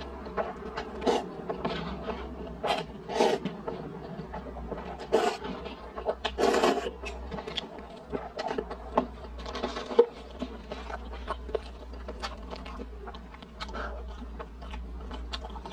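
Close-miked slurping and chewing of instant noodles: several louder slurps in the first seven seconds, among many small wet mouth clicks and smacks.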